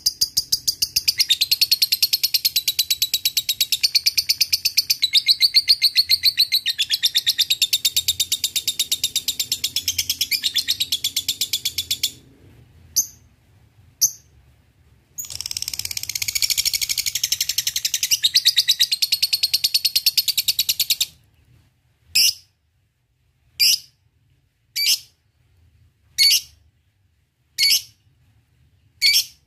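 Lovebird chattering in a long, rapid, high trill (the ngekek) for about twelve seconds, then two short calls, then a second run of chatter for about six seconds. After that it gives single sharp chirps about every second and a half.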